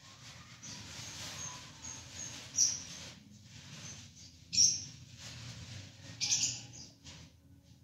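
Budgerigars chirping: soft high chirps, then three louder, sharp short calls about two seconds apart.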